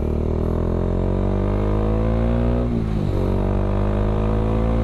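Bajaj Dominar 400's single-cylinder engine through an aftermarket Akrapovic M1 exhaust, pulling under way with its pitch slowly rising. The pitch dips at a gear change about three seconds in, then climbs again.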